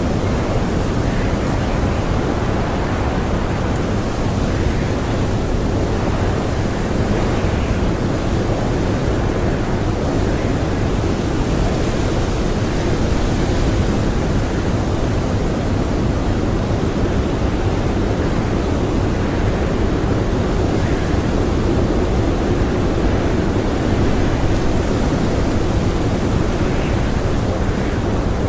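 Blizzard wind blowing steadily, a dense low rushing noise that swells and eases only slightly.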